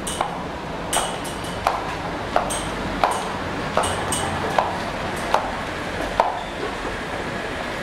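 Footsteps of hard-soled shoes walking down a staircase: a steady series of sharp clicks at walking pace, about one every 0.7 seconds, over a steady background hum.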